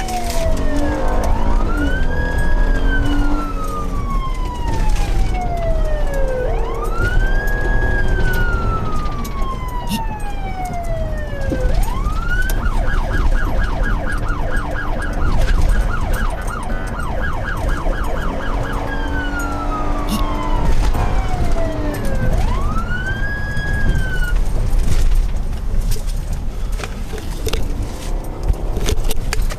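Police car siren in wail mode, rising and then sliding slowly down over several seconds, again and again. About twelve seconds in it switches to a fast yelp of about four cycles a second for some seven seconds, then goes back to the wail. A steady low vehicle rumble runs underneath.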